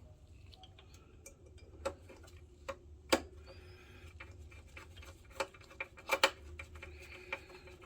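Irregular small clicks and knocks of plastic and metal parts of a DLP projector being handled and fitted during repair, the loudest a little after three seconds and around six seconds, over a low steady hum.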